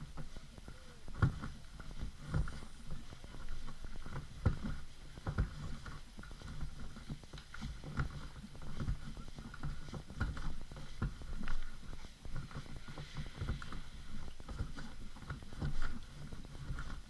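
Sea kayak being dragged over wet sand by its bow. The hull scrapes and bumps along in frequent irregular knocks, heard through the deck the camera is mounted on, along with the puller's footsteps.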